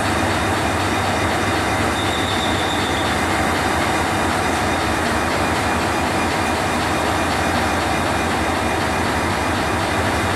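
Diesel locomotive hauling a passenger train, its engine running steadily over the rumble of wheels on the rails. A brief high squeal comes about two seconds in.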